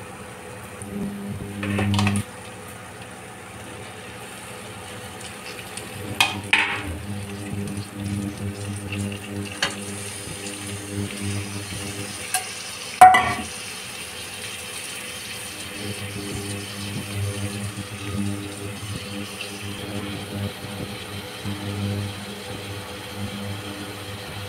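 A spatula scraping and knocking against a metal kadai as paneer cubes, capsicum and onion are stirred into a fried masala, with a sharp clank about halfway through, over a steady low hum.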